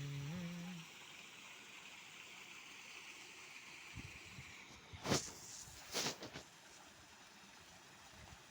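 Steady rushing of a small waterfall, fairly faint, broken by two short loud noises about five and six seconds in.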